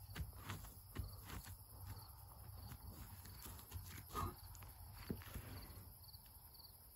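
Standard donkey grazing and stepping on grassy, hay-strewn ground: faint scattered crunches of tearing grass and soft hoof steps.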